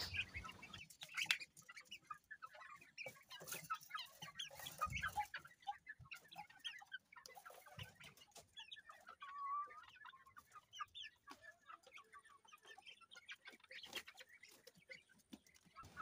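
Young chickens clucking softly in short, scattered calls, with a few sharp knocks as their wire cage is handled.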